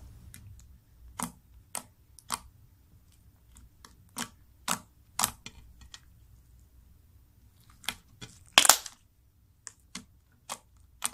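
Homemade over-boraxed slime being squished and poked by hand, giving irregular sharp clicks and pops, with one longer, louder squelch a little after two-thirds of the way through.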